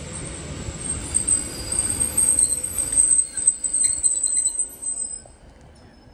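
Class 156 Super Sprinter diesel multiple unit slowing into a station platform, its running gear rumbling under a loud, steady high-pitched brake squeal. The squeal cuts off suddenly about five seconds in as the train comes to a stop, and the rumble dies away with it.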